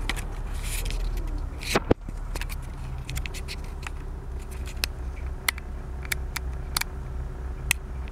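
Camera being handled and repositioned inside a 2002 Jeep TJ: a scatter of small clicks and knocks, with a sharper knock about two seconds in. Under it runs the steady low hum of the running Jeep.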